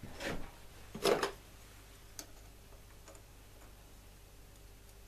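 Two short handling scrapes, then a few light metallic ticks, as stacked feeler gauge blades and a depth gauge tool are fitted against the cutters of a chainsaw chain to check the depth gauge setting.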